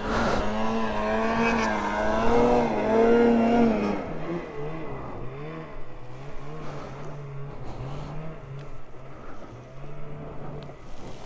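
Snowmobile's two-stroke engine running under throttle, its pitch wavering up and down; about four seconds in it drops to a lower, quieter note.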